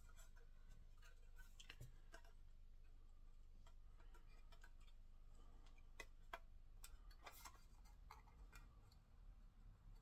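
Near silence with faint, scattered small clicks and ticks of a plastic model-kit body panel and its wipers being handled, a few sharper clicks about six to seven seconds in.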